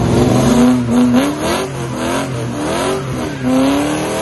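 LS1 V8 engine of a VN Commodore revving hard under acceleration, its pitch climbing and dropping several times.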